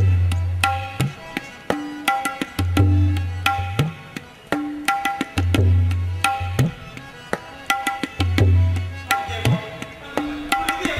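Tabla playing a repeating rhythmic cycle: a deep bass-drum stroke that glides upward in pitch about every three seconds, between quick ringing strokes on the treble drum.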